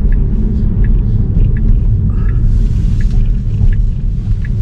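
Steady low rumble of road and tyre noise inside the cabin of a 2019 Tesla Model 3 Dual Motor, an electric car with no engine sound, as it drives along. Faint short ticks repeat about every three-quarters of a second over the rumble.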